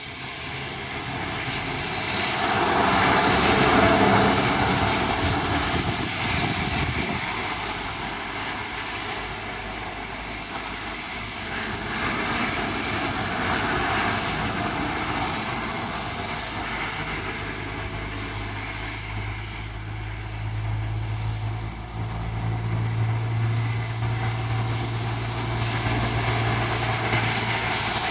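Strong wind blowing in gusts and buffeting the microphone, swelling a few seconds in and again near the middle, with a steady low rumble in the second half.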